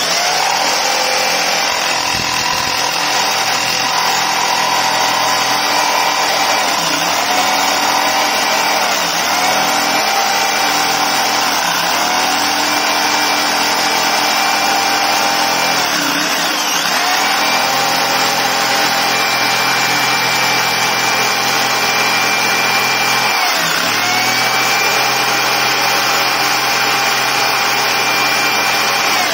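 Electric jigsaw starting abruptly and sawing through a wooden plank. It runs with a steady whine and rasping blade noise, and its pitch dips briefly about five times as the blade loads up in the cut and then recovers.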